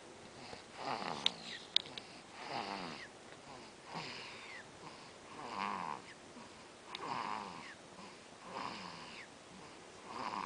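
Rhythmic snoring, one snore about every second and a half, each sliding down in pitch. Two sharp clicks sound just after the first snore.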